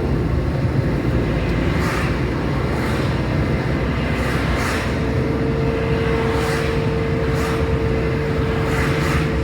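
Steady road and engine noise of a car on the move, with brief whooshes of passing traffic and a steady hum that comes in about five seconds in.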